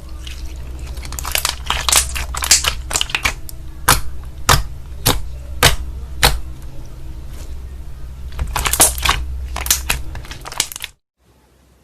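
Slime being squeezed and poked, giving crackling, crunchy clusters and sharp pops. In the middle comes a run of five single pops about every half second. The sound cuts off abruptly near the end.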